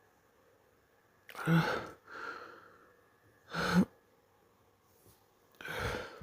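A person hiccuping three times in a hiccup fit, about two seconds apart, each a short, sudden voiced 'hic'. A breathy exhale trails the first.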